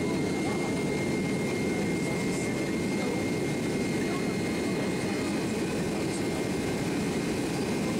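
Boeing 767-300ER's jet engines at takeoff thrust, heard inside the cabin beside the wing: a steady loud rumble with a thin high whine over it, as the airliner rotates and lifts off the runway.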